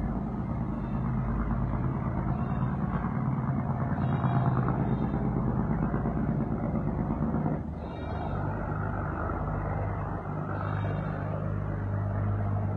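A steady low engine-like drone that drops in pitch and level about eight seconds in, as at a gear change, then runs on lower.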